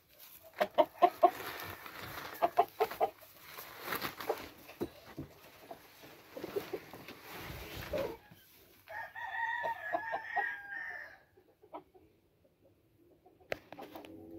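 Game chickens clucking amid rustling and knocks, then a game rooster crows once, a held call of about two seconds, about nine seconds in.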